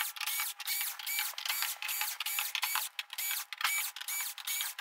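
Cordless drill/driver backing out screws from a TV's back panel: a quick run of short, thin, high-pitched whirring bursts, about four a second.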